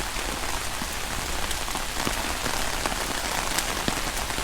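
Heavy rain falling steadily: a dense hiss scattered with many sharp individual drop hits.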